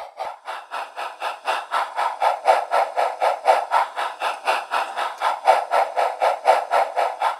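Steam locomotive chuffing from a SoundTraxx Econami sound decoder, played through a small speaker seated in a 3D-printed baffle: a steady, rapid beat of about five chuffs a second with little bass.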